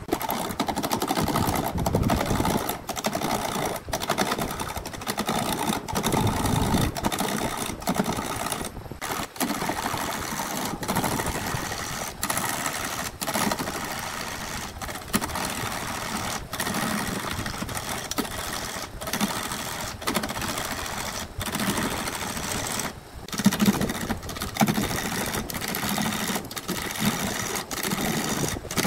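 Wood lathe running at about 400 rpm while a hand-held gouge cuts a segmented wooden blank that is still out of round, giving a steady fast rattling chatter.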